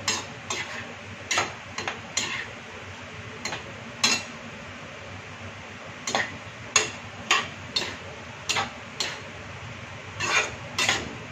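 Metal spatula scraping and clacking against a metal kadhai as besan-coated bottle gourd pieces are stir-fried in oil, in irregular strokes about one or two a second.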